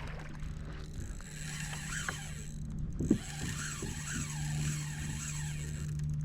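Spinning reel's drag buzzing and clicking as a big redfish pulls line off, over a steady low hum, with one sharp knock about three seconds in.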